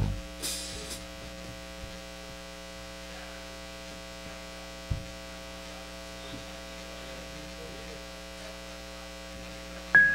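Steady electrical mains hum from the stage amplification between songs, with a single soft low thump about five seconds in. An electric piano starts playing at the very end.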